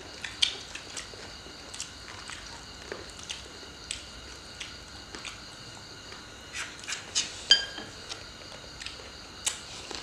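Close-up eating sounds: chewing of papaya salad and meatballs, with scattered clicks of chopsticks on ceramic plates. The loudest is a short ringing clink about seven and a half seconds in.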